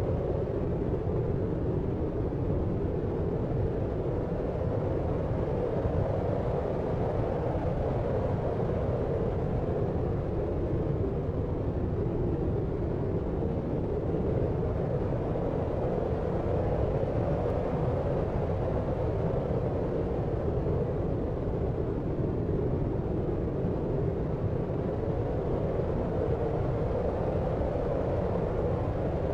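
Steady deep noise for sleep: an even, unchanging low hiss with most of its weight in the low and lower-middle range and little top end.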